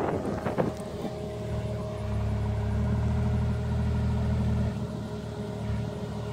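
Engine of an orange side-by-side utility vehicle running at low speed as it drives slowly over grass, a steady low hum that grows louder about a second and a half in and eases off near the end. A few knocks sound in the first second.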